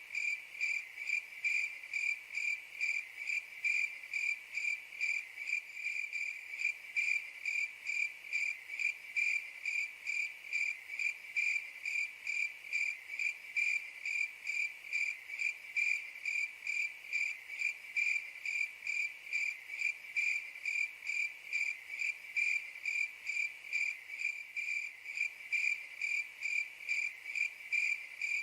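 Crickets chirping in a steady, even rhythm, about two high-pitched chirps a second.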